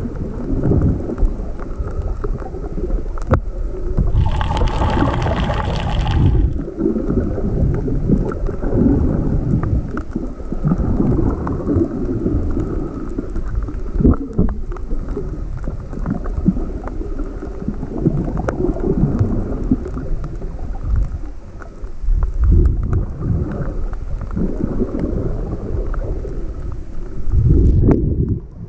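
Rough sea surf with wind buffeting the microphone: a loud, churning low noise of breaking waves and rushing water that swells and falls. A brief higher-pitched sound lasts about two seconds, some four seconds in.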